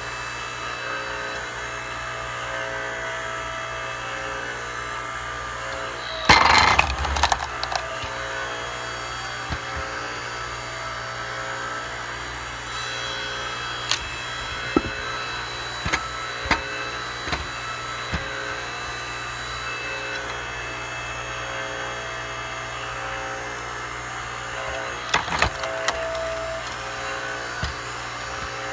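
Hydraulic log splitter running with a steady hum. About six seconds in, a log splits with a loud crack and splintering. Scattered sharp knocks of wood follow, and a short run of cracks comes near the end.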